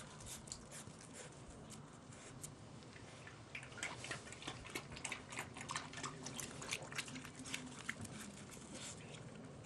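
Staffordshire bull terrier puppy playing with a ball: a faint, irregular scatter of small clicks and taps, coming more thickly after the first few seconds.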